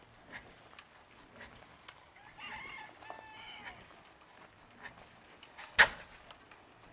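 A rooster crows once, a call of about a second and a half starting a little over two seconds in, over faint regular footsteps. Near the end a single sharp knock, the loudest sound, cuts in briefly.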